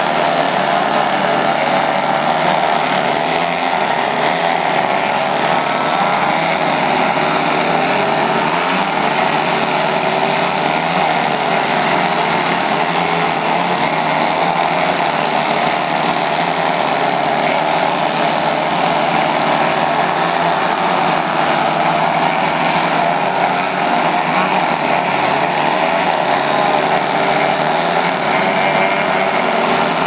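Engines and propellers of many radio-controlled aerobatic model airplanes running together as they hang nose-up in a hover, blending into one steady, dense drone.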